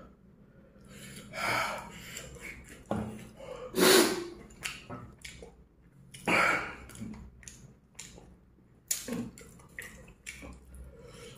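A man's sharp, hissing breaths through the mouth, three louder ones a couple of seconds apart, with small lip smacks and chewing between: his reaction to the heat of spicy chicken.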